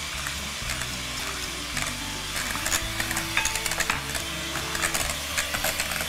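Electric hand mixer running, whisking cream and condensed milk to soft peaks in a glass bowl, with a steady motor hiss and frequent clicks of the beaters against the bowl, under background music.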